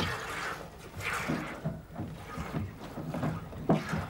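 Goats being hand-milked: squirts of milk hissing into a plastic bucket, coming in short bursts about once a second, with a short cry near the end.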